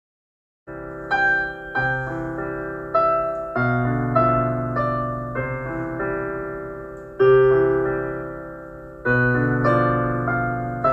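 Slow background piano music: struck notes and chords that ring and fade, starting after a brief silence at the very beginning.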